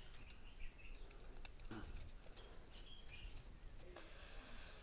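Quiet ambience with a few faint, short bird chirps and scattered light clicks and rustles, as of fossils and plastic sheeting being handled.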